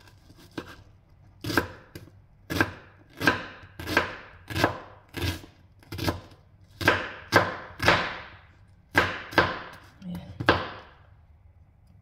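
Kitchen knife chopping an onion into small cubes on a cutting board: a run of sharp, irregular knocks, a few a second, with short pauses, stopping about a second before the end.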